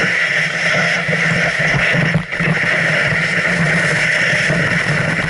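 Snowboard sliding and scraping over snow, with wind noise on a body-worn camera's microphone: a loud, steady rush that dips briefly about two seconds in.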